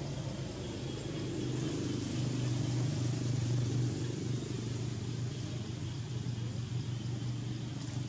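A steady low engine hum, as of a motor vehicle running nearby, swelling slightly a couple of seconds in and then easing back.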